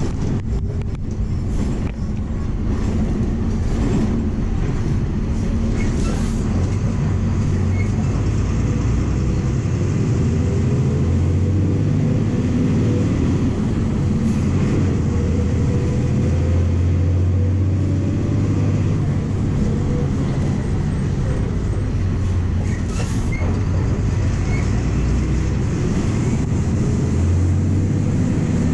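MWM 6.12 TCE six-cylinder turbodiesel of a VW 17.230 EOD bus running under way, heard from inside the cabin together with road noise. The deep engine note slowly rises and falls as the bus pulls, with a few brief clicks from the body.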